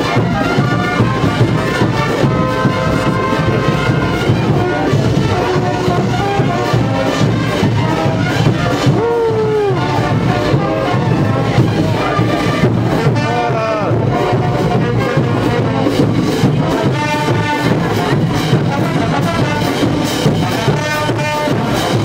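Brass band with drums playing processional dance music, held brass notes over a steady drum beat.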